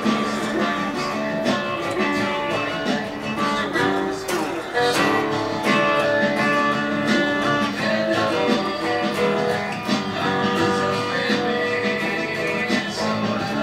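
Hollow-body archtop guitar played through an instrumental stretch, strummed chords and picked notes going on without a break.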